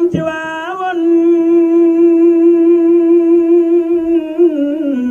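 A man singing a devotional chant into a microphone, holding one long note for about four seconds, wavering slightly, then sliding down in pitch at the end.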